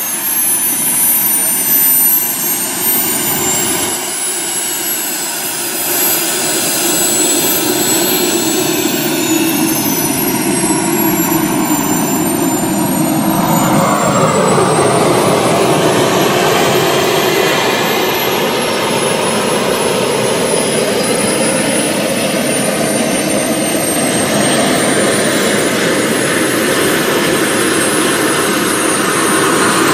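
Miniature jet turbines of a giant-scale RC Avro Vulcan model running as it taxis, a high turbine whine sliding up and down with the throttle over a steady rush of exhaust. About halfway through, the exhaust noise swells and grows rougher as the model rolls close by.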